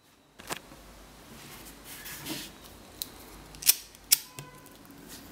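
A few sharp clicks and knocks, the two loudest close together about three and a half to four seconds in, from a small glass-jar wick burner being handled and set down on a wooden base.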